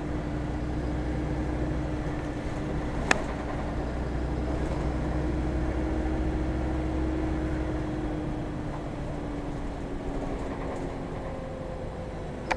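City bus running, heard from inside the passenger cabin: a steady drone with a whine that falls slowly in the second half. There is a single sharp click about three seconds in.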